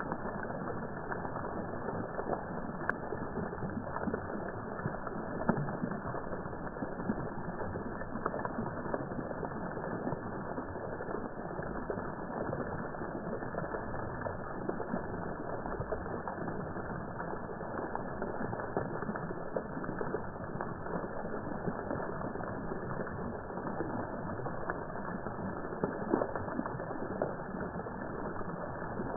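Fountain jets and spray splashing down, slowed in slow-motion playback into a low, steady crackling wash.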